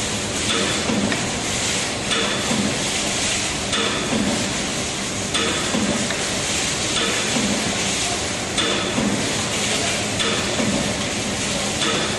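Aluminium foil tray press running on a steady cycle, with a repeating stroke about every second and a half over continuous machine noise.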